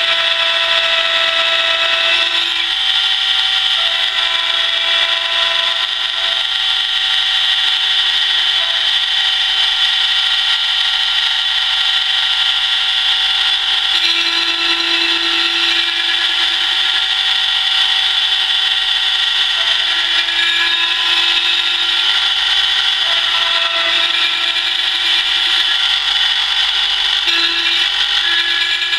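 Mortise key cutting machine running steadily as its cutter cuts a mortise key copy: a loud, steady whine with several high tones that shift a little now and then.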